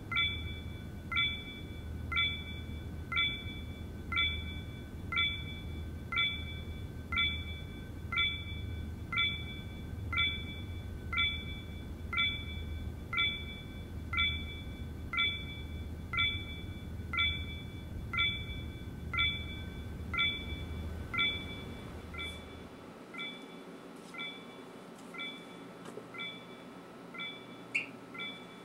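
Electronic pinging at a steady pace of about one short ping a second, each with a brief ring-off, over a low hum. About 22 seconds in the hum drops away and the pings carry on, fainter.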